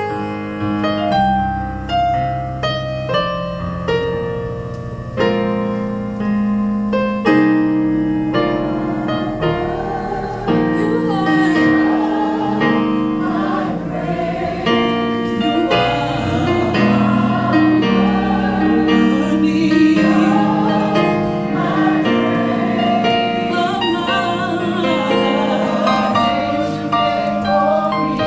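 Choir singing with piano accompaniment. The piano plays alone at first, and the voices come in about ten seconds in and carry on over the piano.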